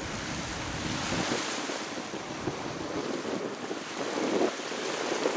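Small waves splashing and washing at the water's edge, with wind buffeting the microphone; a louder wash comes about four and a half seconds in.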